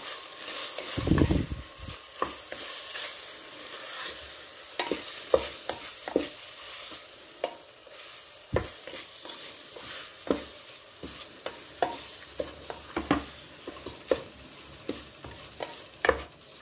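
Wooden spoon stirring chunks of beef and spices in a metal pressure cooker, scraping and knocking against the pot in irregular clicks over a steady sizzle of the meat frying. A dull bump about a second in.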